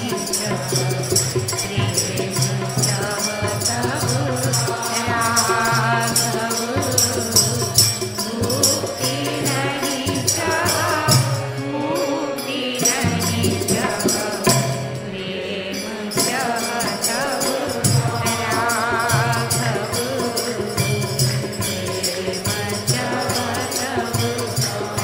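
Instrumental interlude of a devotional kirtan: a wavering melody line over a steady low accompaniment, with jingling hand percussion keeping the beat.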